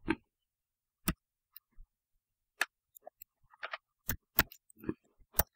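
Keystrokes on a computer keyboard: about a dozen irregularly spaced clicks and taps, the loudest right at the start, as keys are pressed at a DOS program that has hung.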